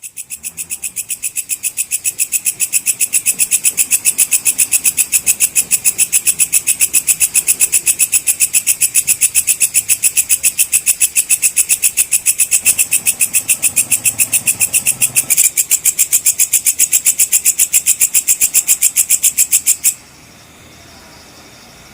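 Walang kecek (belalang kecek) insect calling: a fast, even string of shrill chirps, several a second, that swells over the first few seconds, holds steady, and cuts off suddenly near the end.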